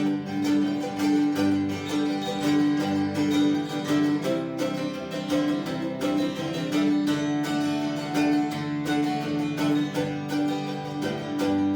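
Acoustic plucked-string instrumental break: guitar playing a steady country rhythm with picked notes on top, and no voice.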